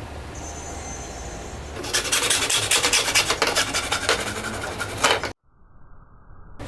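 Fast back-and-forth rasping strokes on PVC pipe, starting about two seconds in and stopping abruptly a little after five seconds. A quieter, muffled stretch follows.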